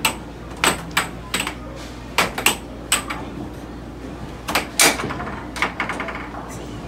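Air hockey rally: the puck and plastic mallets clacking sharply against each other and the table rails, over a dozen hits at an irregular pace, with a steady low hum from the table's air blower underneath.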